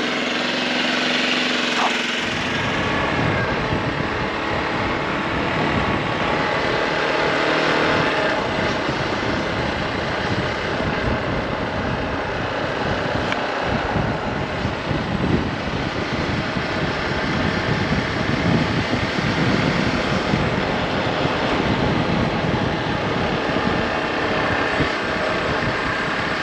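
Hero Xpulse 200 4V's single-cylinder motorcycle engine running with an even note for about two seconds, then riding off, the engine mixed with a rough wind-and-road rumble that continues steadily.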